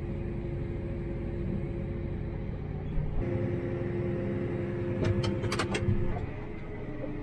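Tractor engine running steadily, heard from inside the cab, its hum rising a little about three seconds in. A few sharp clicks come near the end.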